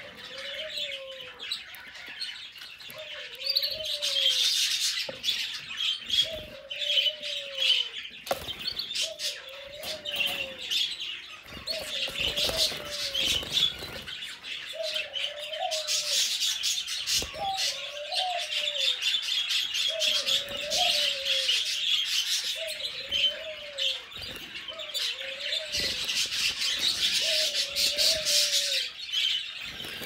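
Domestic canaries chirping and twittering steadily, with sharp clicks among the calls. Underneath, a lower call that rises and falls repeats about every one and a half to two seconds.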